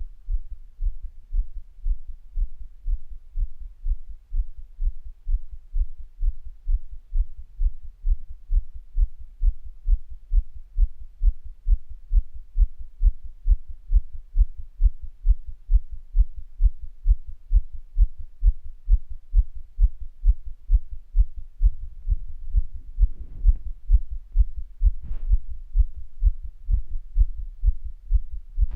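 Human heartbeat, recorded close against the chest, beating fast and regularly at about two beats a second, the rate raised by physical activity.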